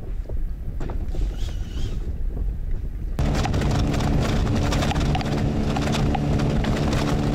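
Wind rumbling on the microphone over open water. After about three seconds, a boat's outboard motor comes in, running steadily at an even pitch with loud wind and water noise around it.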